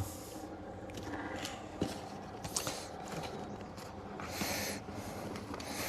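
Faint handling noises: a few light knocks and short rustles, with a longer rustle about four seconds in, as tyres are picked up and handled.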